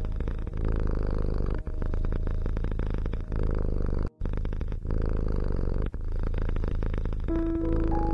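Domestic cat purring steadily, the purr broken by a short pause every second or so as it switches between breathing in and out. Near the end, music with short pitched notes comes in.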